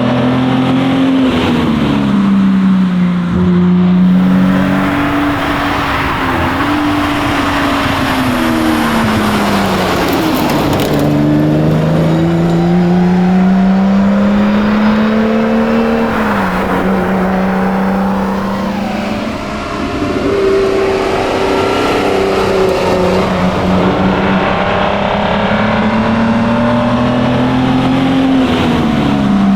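1961 Austin Healey 3000 Mk 2's straight-six engine driven hard: the revs climb and then drop sharply at each gear change, over and over, with tyre and road noise underneath.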